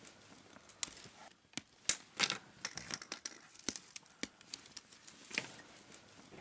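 Rustling and irregular small clicks of gloved hands handling wires and a small sensor on a PVC pipe frame, with a couple of louder clicks about two seconds in.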